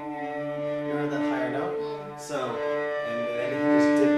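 Cellos bowing long sustained notes, with a bow change about two seconds in. The bowing is deliberately cautious and light, not exciting the strings with enough pressure.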